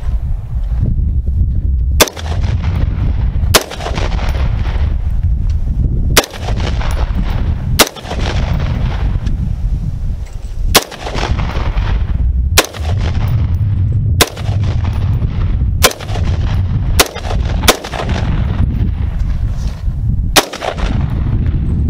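AR-15 semi-automatic rifle fired in about eleven single shots, spaced one to three seconds apart, each with a short echoing tail. A steady low rumble runs between the shots.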